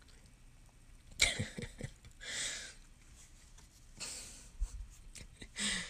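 Stiff trading-card stickers being handled: a rustle with a few light clicks about a second in, more clicks later, two soft breathy hisses between them, and a short low hum near the end.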